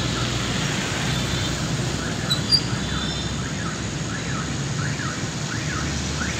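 Road traffic noise with motorbikes passing. From about two seconds in there is a repeating warbling tone, falling and rising about one and a half times a second, with a couple of brief high chirps.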